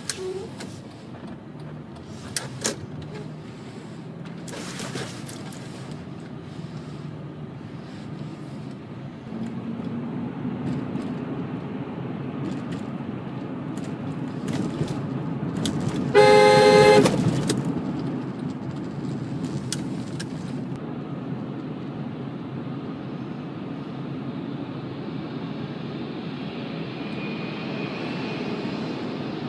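Steady road and engine noise of a moving car, with a car horn giving one blast of about a second, about sixteen seconds in.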